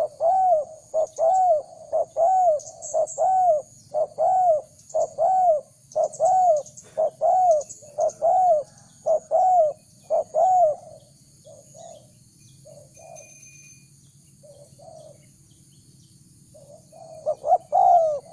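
Spotted dove cooing: a fast run of loud coos, each rising and falling, about two a second. After about 11 s the coos are sparser and softer, and a loud burst of coos comes near the end. Faint high chirping runs underneath.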